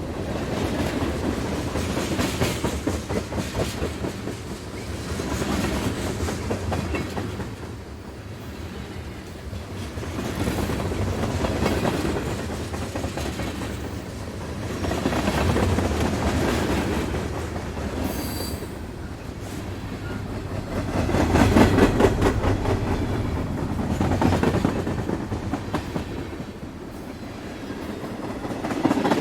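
Train wheels clattering over rail joints: a continuous, rapid clickety-clack that swells and fades every few seconds. A brief high squeal comes a little past the middle.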